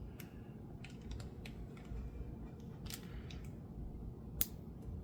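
Light, scattered clicks and taps of small metal lock parts as a challenge lock is handled and worked open, with one sharper click about four and a half seconds in.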